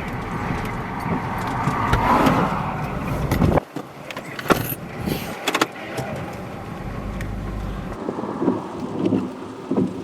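Strong wind rushing and buffeting around a storm-chasing vehicle near a dusty tornado. The rush cuts off sharply about three and a half seconds in, leaving scattered clicks and knocks and uneven gusting pulses near the end.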